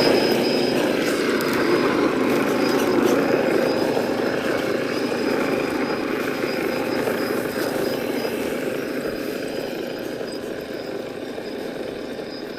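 Electric motor and geared drivetrain of an RC Nissan Patrol scale crawler whirring as it drives over snow and ice, with a thin high whine on and off. The sound slowly grows fainter toward the end.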